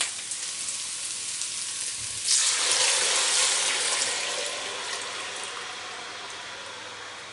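Vegetables and tomato paste sizzle in hot fat in a roaster. About two seconds in, the strained red-wine marinade is poured in to deglaze the pan, giving a loud hissing splash that slowly dies down as the pouring goes on.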